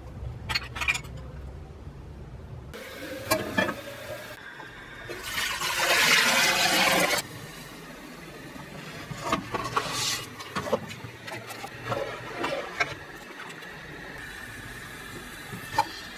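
Rice tipped into a steel pot of boiling water: a rushing pour and splash lasting about two seconds, followed by scattered splashes and light metal taps in the pot. A few sharp light clinks come in the first second.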